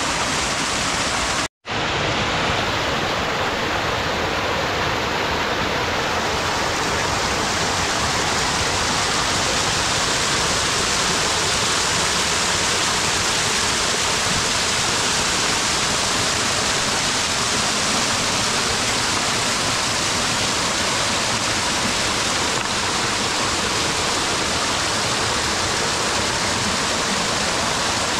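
Small mountain-stream waterfall pouring over boulders: a steady, loud rush and splash of falling water, with the sound cutting out for an instant about a second and a half in.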